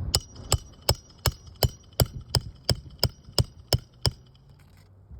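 Hammer driving roofing nails: eleven evenly spaced blows, about three a second, each ringing with a metallic tone, stopping about four seconds in.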